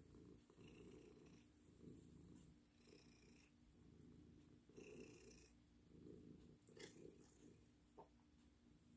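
A long-haired tabby cat purring faintly while its face and chin are scratched by hand, the purr swelling and easing about once a second.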